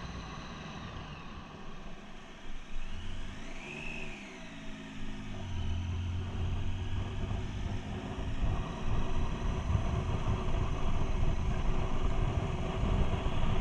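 Triumph motorcycle engine running under way, with wind and road noise on a helmet-mounted microphone. A little before halfway the engine note rises and falls, then settles into a steady note that grows gradually louder toward the end.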